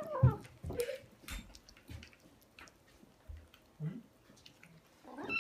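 Several kittens eating wet cat food from a plate: scattered wet chewing and smacking sounds with small clicks. A kitten's short mewing call, the grumbling they make while they eat, at the very start and another near the end.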